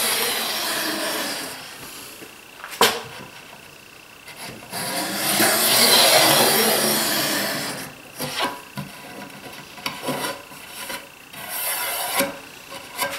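A router plane shaves along the shoulder of a wooden sliding lid in scraping strokes. One stroke ends about a second and a half in, a long one runs through the middle, and a short one comes near the end. A single sharp knock falls between the first two strokes, and a few light taps of the tool on the wood follow the long one.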